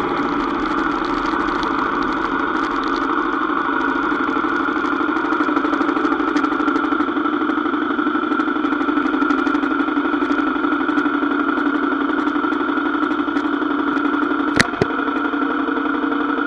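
Kawasaki KLX250's single-cylinder four-stroke engine idling steadily with the bike at a standstill. A single sharp click near the end.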